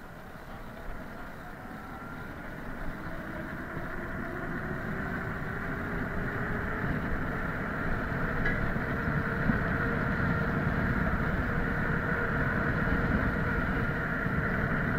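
Electric hub motor of a converted kick scooter whining, rising gradually in pitch and getting louder as the scooter gathers speed, over a rumble of tyre and wind noise.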